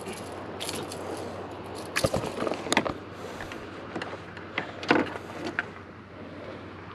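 About five scattered knocks and clicks of gear being handled on a fishing boat, the loudest about five seconds in, over a steady background hiss.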